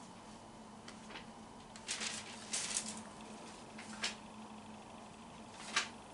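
Thin Bible pages rustling as they are leafed through and turned: several short papery swishes, the loudest near the end.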